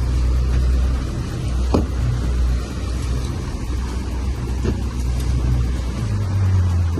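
Boat's outboard engines running low and steady, with the pitch of the drone stepping up slightly near the end. Two short knocks are heard about two and five seconds in.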